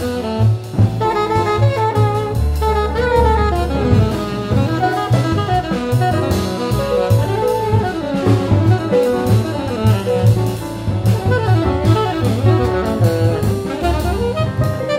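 Jazz quartet recording: an alto saxophone line of quick, changing notes over piano, double bass and drum kit.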